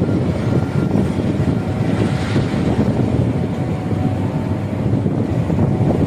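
Shore crane's machinery running with a steady low rumble.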